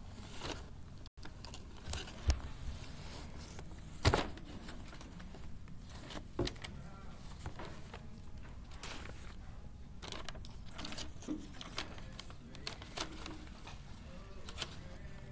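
Printed paper sheets rustling and crackling as a thick stack is leafed through and handled, in many short irregular bursts, with two louder sharp sounds about two and four seconds in.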